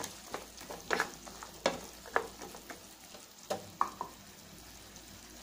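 Wooden spatula stirring garlic cloves and tomatoes in oil in a non-stick frying pan, with a string of sharp knocks and scrapes against the pan over a faint sizzle. The stirring stops about four seconds in, leaving only the faint sizzle.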